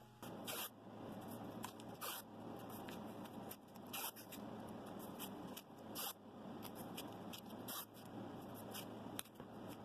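Blue painter's tape pulled off the roll in several short rips, with hands rubbing and smoothing the tape down over stacked wood sheets.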